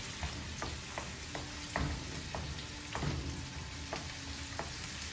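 Chopped onions sizzling in hot oil in a kadai, stirred with a wooden spatula that scrapes and knocks against the pan in short, irregular clicks, a couple of them louder about two and three seconds in.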